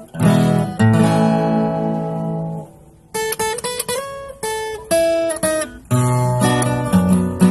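Acoustic guitar played solo as a song intro: strummed chords ring out and fade, a short run of single picked notes follows after a brief pause, then strumming resumes near the end.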